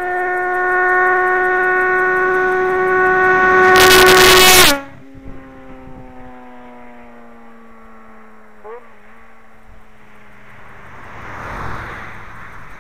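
Yamaha XJ6's inline-four through an aftermarket stainless Power exhaust, held at high revs with a steady high-pitched howl that grows louder. About five seconds in it drops sharply in level, and the engine note then falls slowly in pitch as it dies away. Near the end there is a brief swell of rushing noise.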